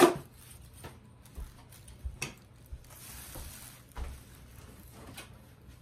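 Potting soil and a plastic sheet being handled while a plant is set into a clay pot: soft rustling and scratching with a few light knocks, and one sharp knock right at the start.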